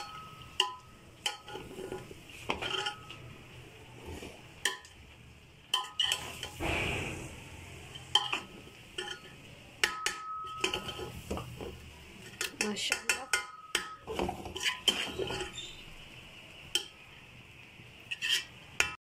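Long metal spoon mixing cooked biryani rice in a metal pot: soft rustling of the rice broken by many irregular clinks and scrapes of the spoon against the pot, some ringing briefly.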